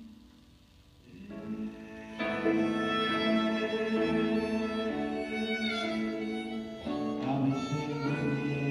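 Harmonica playing a slow solo of long held notes over piano, coming in softly after a hushed first second and bending down in pitch on one note midway.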